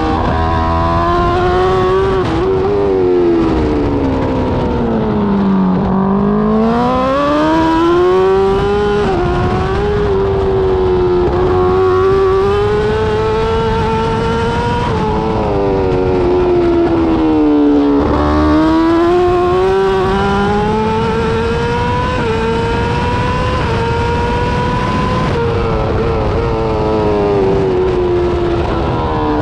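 BMW M 1000 RR superbike's inline-four engine at racing speed, heard from on board. The engine note sinks over the first six seconds as the bike slows into a corner, then climbs steadily back up the revs; it drops and climbs again about two-thirds of the way in, and falls off near the end.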